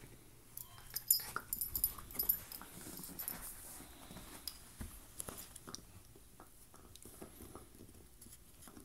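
Corgi puppy handling and gnawing a deer antler. A flurry of sharp clicks and scrapes comes about a second in, then it thins to scattered clicks of teeth on antler.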